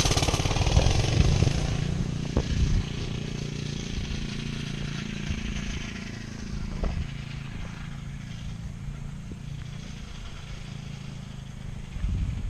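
Coleman off-road go-kart's small gas engine running as the kart drives off, loudest in the first couple of seconds and then fading to a faint, distant drone.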